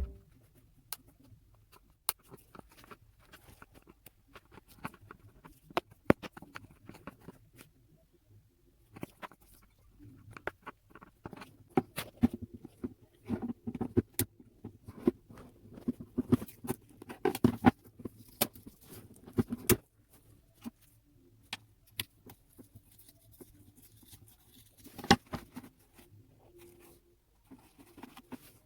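Hand tools and small engine parts being handled during the spark plug seal job: scattered light clicks, taps and soft scraping, busiest in the middle, with a louder cluster of knocks near the end.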